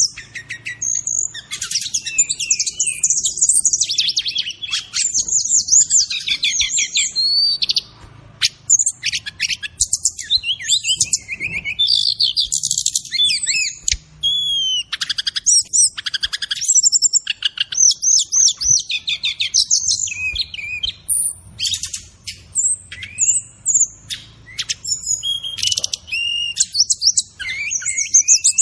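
Brown-chested jungle flycatcher (SRDC) singing a long, varied song of rapid chirps, trills and sweeping whistles, delivered in phrases broken by short pauses.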